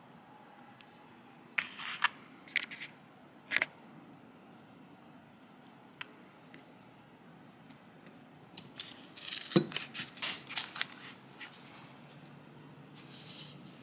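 Foil-lined paper wrapper of a block of butter being handled and opened: a few short rustles and clicks in the first few seconds, then a louder stretch of crinkling with a thud about ten seconds in.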